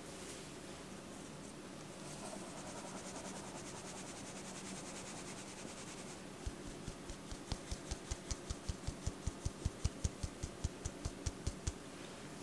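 Flour being sifted through a fine-mesh stainless steel sieve into a stainless bowl. A soft hiss of the sieve being shaken comes first, then about halfway through a steady run of light taps on the sieve, about five a second, knocking the flour through.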